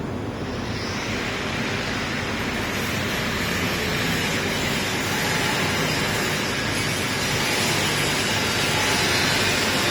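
Steady hum and hiss of a laser cutting machine's running equipment. The hiss grows gradually louder from about a second in.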